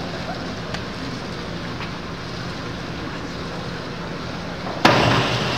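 Steady hum of an indoor pool hall, then near the end a sudden loud splash as a diver enters the water off the springboard.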